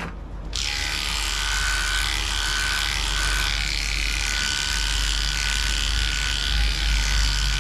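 Heiniger electric dog-grooming clippers, fitted with a guard comb, switched on about half a second in and running steadily with an even motor whine while clipping fur.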